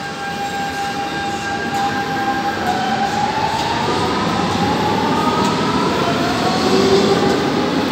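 Lisbon metro train running in the station: a steady motor whine that starts rising in pitch about three seconds in, over a rumble that grows louder.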